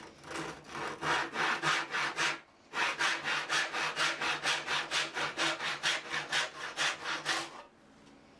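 Hand saw cutting through wood in even back-and-forth strokes, about three a second, with a brief pause about two and a half seconds in.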